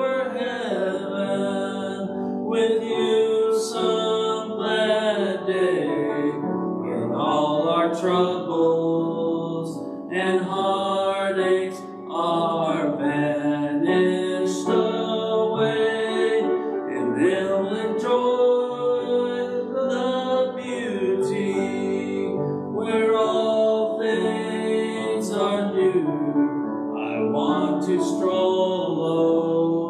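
A woman and a man singing a worship song together, phrase after phrase, with a short pause about twelve seconds in.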